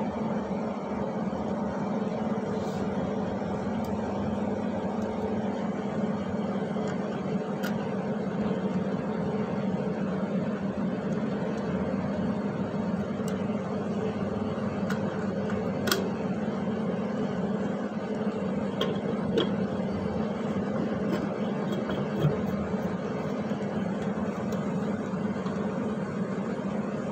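Steady machine hum, with a few faint metallic clicks as metal slide clips are set into a cytocentrifuge rotor.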